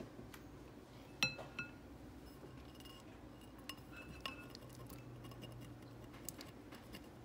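Glass bowls clinking: a small glass bowl knocks against the rim of a larger glass mixing bowl as its contents are scraped out with a silicone spatula. The loudest is a ringing clink about a second in, followed by a second one, then lighter taps and clinks.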